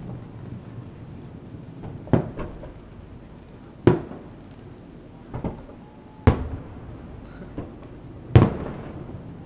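Distant aerial firework shells bursting: about six sharp booms at irregular intervals, each trailing off in a short echo, with the loudest near the end.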